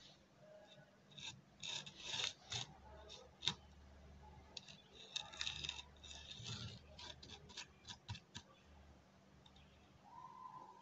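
Hands rubbing and scraping on a board, with faint, irregular scratchy rustles and a sharp click about three and a half seconds in.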